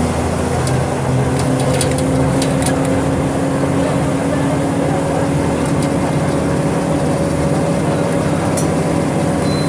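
Volkswagen 17.230 EOD city bus diesel engine pulling under load, its pitch rising slowly and steadily as the bus gathers speed, with a few sharp rattles from the body.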